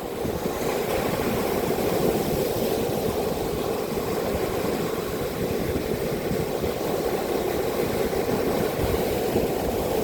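Steady low roar of strong typhoon wind buffeting the microphone, mixed with heavy surf.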